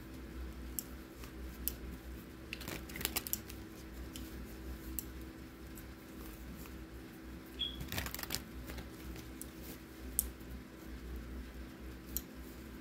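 Scattered light clicks and rattles of small objects being handled, bunched about three seconds in and again about eight seconds in, over a steady low electrical hum.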